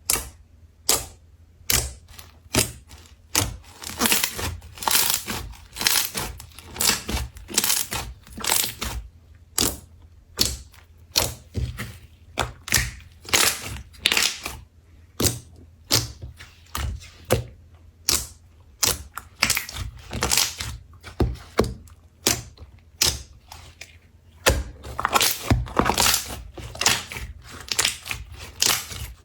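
Slime being pressed and squeezed by hand, giving a steady run of sharp clicking pops, about one or two a second, with denser clusters of clicks about a quarter of the way in and again near the end.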